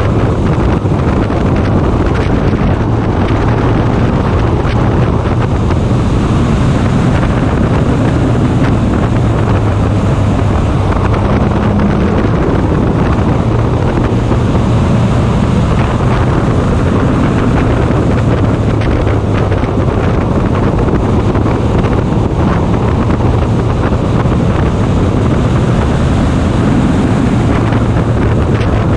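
Race car engine running steadily at speed, heard onboard, with heavy wind noise buffeting the microphone over a constant low drone.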